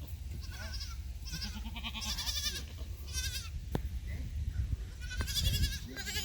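Penned livestock bleating, about five calls in a row, each with a shaky, quavering pitch. A low wind rumble runs underneath, with a couple of small clicks.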